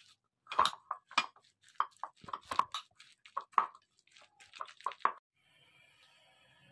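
A kitchen utensil working a wet mixture in a bowl: about a dozen irregular wet taps and plops over some four seconds, which then stop, leaving a faint hiss.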